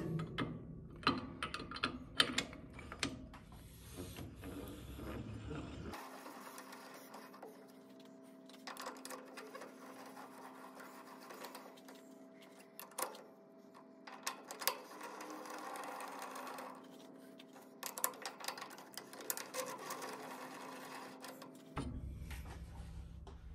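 Jaws of a large four-jaw lathe chuck being wound back into their slots: rapid metallic clicking and rattling as the jaw screws turn and the jaw teeth engage. A faint steady hum runs under the clicking from about six seconds in until near the end.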